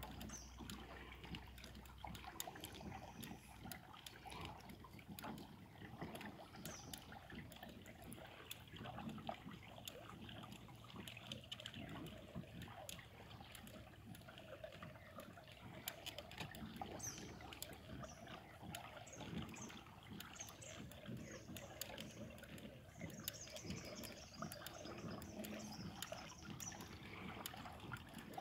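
Faint trickle and lap of water along the hull of a Hobie Pro Angler 14 kayak moving slowly under way, with scattered small ticks. A few faint bird chirps come in during the second half.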